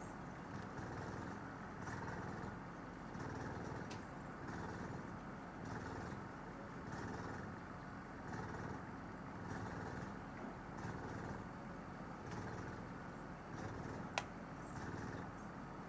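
Crane truck's diesel engine running steadily while lifting, its level swelling and easing every couple of seconds, with one sharp click near the end.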